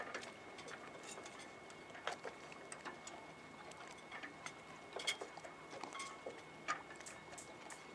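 Quiet ambience of irregular small clicks and ticks, a few every second, over a faint hiss with a thin steady high tone.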